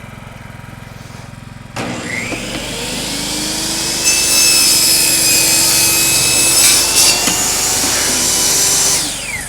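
A table saw running off a GenMax inverter generator. The generator's steady engine hum is heard first. About two seconds in the saw is switched on and its motor whines up to speed. From about four seconds the blade cuts through a wooden shelf board, louder, and near the end the saw is switched off and winds down.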